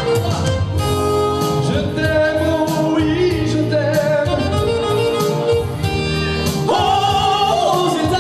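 A song performed live: a male voice singing over Yamaha electronic keyboard accompaniment with steady bass notes, the melody wavering with vibrato and swelling near the end.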